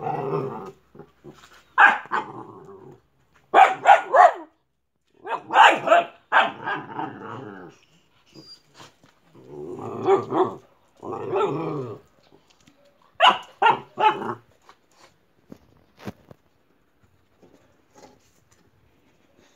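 Boxer dog barking and growling in a string of bursts, short sharp barks mixed with longer growls, stopping about fifteen seconds in.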